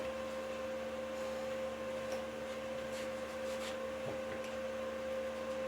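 Stick (electrode) arc welding on a pipe: a steady hum with a faint crackle.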